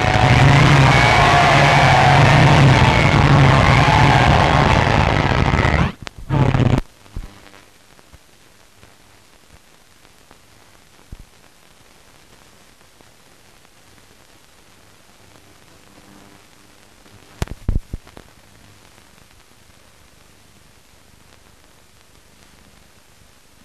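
Loud, dense crowd cheering and shouting that cuts off abruptly about six seconds in, after a brief final burst. After that there is only the faint hiss of a mute film soundtrack, with a few scattered clicks and a short crackle later on.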